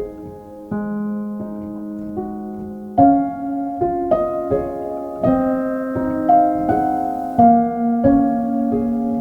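Soft solo piano music, a slow melody over held chords, with notes struck every half second or so.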